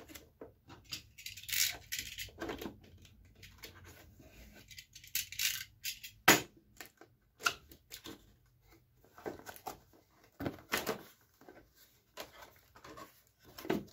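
Cardboard box being handled and opened: rubbing and tearing of cardboard and tape as the flaps are pulled open, with scattered taps and knocks. A single sharp knock about six seconds in is the loudest.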